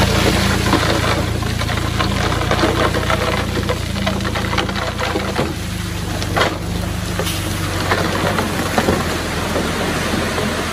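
Komatsu D20P bulldozer's diesel engine running steadily under work, with irregular knocks and rattles throughout.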